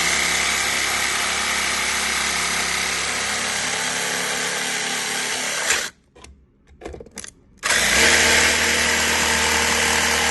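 Jigsaw with a fine-tooth metal blade cutting through an acrylic shower wall panel. It runs steadily, stops about six seconds in, and starts again under two seconds later to carry on the cut.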